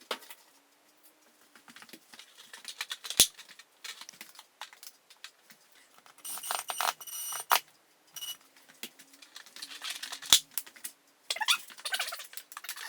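Handling noises of a new LED light fixture being mounted and wired: scattered clicks, knocks and rustling, with two sharp clicks, one about three seconds in and one near the end.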